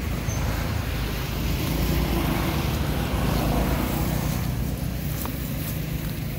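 Steady low rumbling outdoor background noise, swelling a little in the middle.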